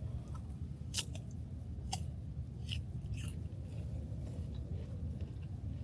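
A few sharp clicks and snips about a second apart, as food packaging is cut or opened by hand, over a steady low rumble.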